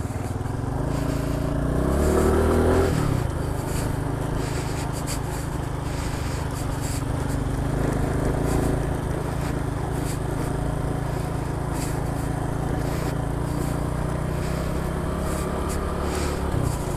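Honda Pop 110i's small single-cylinder four-stroke engine pulling away, its pitch rising for about two seconds and dropping at a gear change, then running steadily at a cruise over a rush of wind and road noise, with a smaller rise in pitch about eight seconds in.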